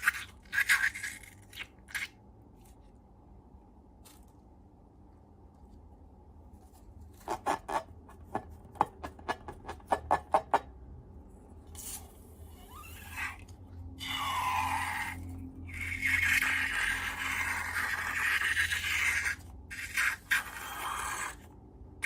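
Hands working slime: a quick run of about a dozen sharp crackling clicks, then longer rubbing and scraping sounds with a few short squeaks.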